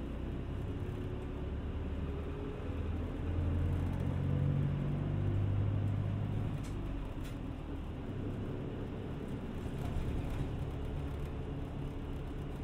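City bus running, heard from inside the passenger cabin: steady engine drone and road noise. The engine note climbs as the bus pulls harder from about two seconds in, then drops back a little past the middle.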